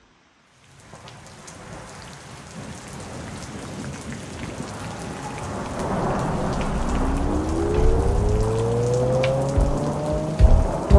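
Music track intro over the edit: a hiss like falling rain swells in after a brief silence, a tone rises slowly from about halfway through, and heavy bass hits come in near the end.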